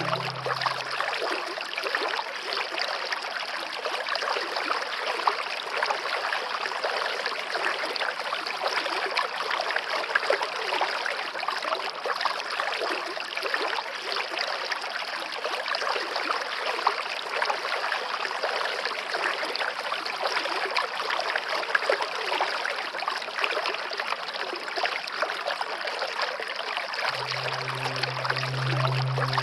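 Waterfall water running steadily, an even rush of noise. Low background music tones fade out about a second in and come back near the end.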